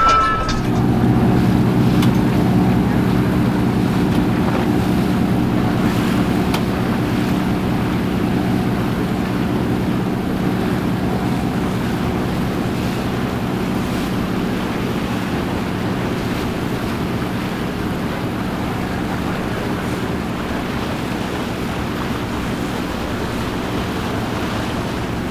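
A motorboat's engine running at a steady pitch under rushing water and wind on the microphone.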